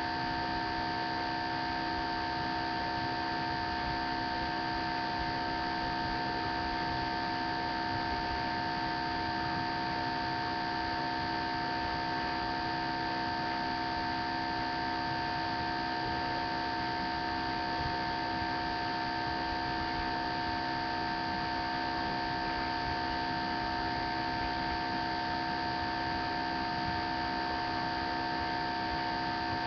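Steady electrical hum and hiss from a webcam's microphone, with several fixed tones held at one pitch and no change in level throughout.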